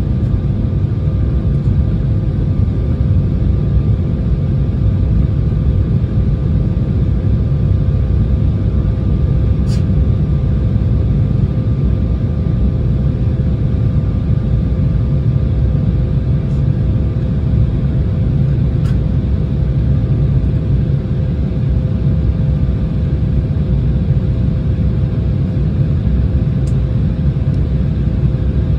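Steady cabin noise inside an Embraer E170 jetliner in descent: a low, even rumble of engines and airflow with a few faint steady hums running through it.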